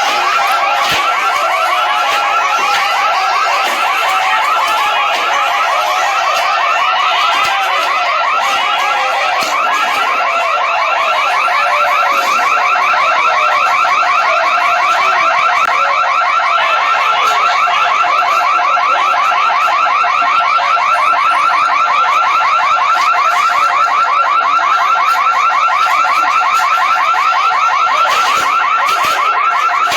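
An electronic alarm sounding continuously as a fast, evenly pulsing high tone, with a few sharp knocks now and then.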